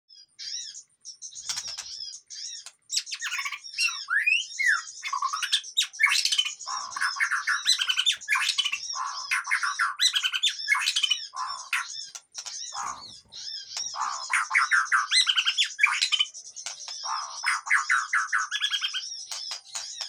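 White-rumped shama and smaller aviary birds calling noisily together in panic: rapid trains of harsh chattering notes mixed with whistled, sliding calls, almost without a break.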